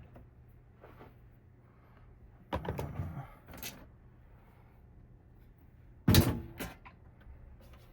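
Handling clatter of small hard objects on a work surface: a short run of clicks and knocks about two and a half seconds in, then a sharper, louder knock about six seconds in followed by a few lighter clicks.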